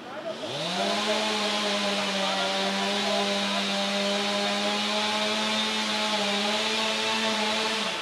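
Two-stroke chainsaw revving up sharply about half a second in and running steadily at full throttle while cutting wood, then dropping off right at the end.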